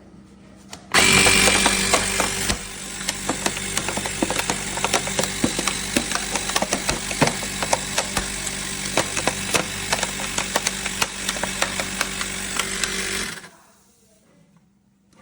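CYCPLUS rechargeable mini tyre compressor switching on about a second in and running with a steady hum and a fast rattle from its small piston pump. It is loudest for the first second and a half, then cuts off abruptly about two seconds before the end.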